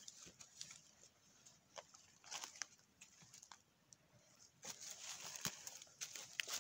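Faint rustling and light crackling of dry leaf litter and twigs underfoot, with scattered small clicks, busier in the second half.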